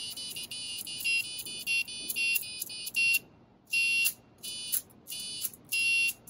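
Arduino-driven piezo buzzer beeping a high-pitched tone, switched on and off as a finger taps a tinfoil capacitive sensor plate; it sounds when the finger is off the plate. The beeps come quick and irregular for about three seconds, then after a short pause turn into slower beeps of about half a second, roughly once a second.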